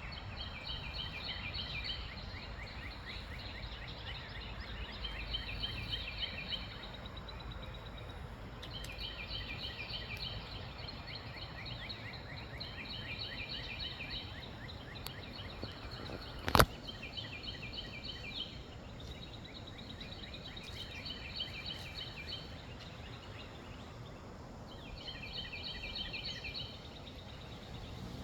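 A bird singing rapid, trilled phrases that repeat every few seconds, over a steady low rumble of wind. One sharp click about two-thirds of the way through.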